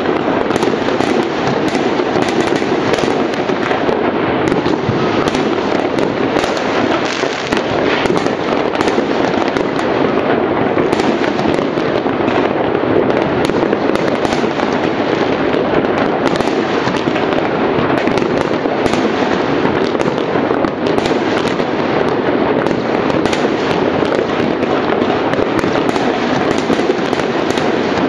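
Many fireworks going off at once all around: a dense, continuous rattle of distant bangs and crackles, with no pause between them.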